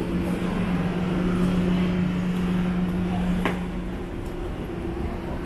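City street ambience: traffic with a steady low engine hum that falls away about four seconds in, and a single sharp click shortly before.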